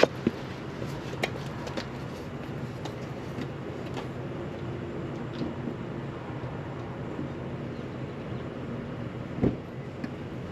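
A vehicle engine idling with a steady low hum, with a few light clicks and a single knock near the end.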